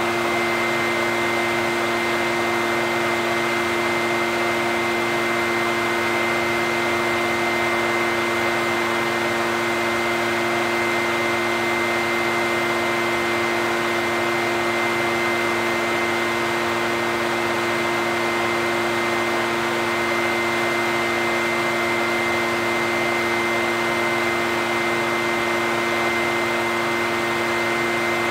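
Echo backpack leaf blower's two-stroke engine running at a constant speed, a continuous rush of air with a steady hum and whine that never changes.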